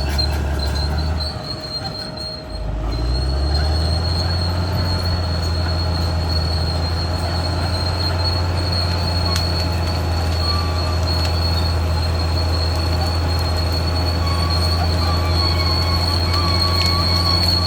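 Caterpillar D6R XL crawler bulldozer working: its diesel engine runs loud and steady, dipping briefly about two seconds in before picking up again, over a steady high-pitched squeal of steel grinding on steel, typical of the crawler's tracks.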